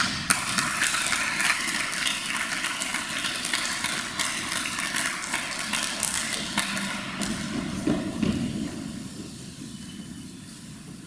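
Audience applauding in a school hall: a dense patter of clapping that thins out about seven seconds in.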